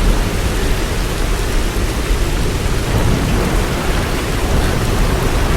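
Hailstorm: heavy rain and hail pelting down in a dense, steady wash of noise, with a deep rumble underneath.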